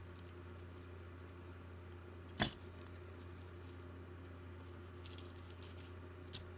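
Jewelry being handled and pulled free: faint small clicks and rustles, with one sharp click about two and a half seconds in and a smaller one near the end, over a steady low hum.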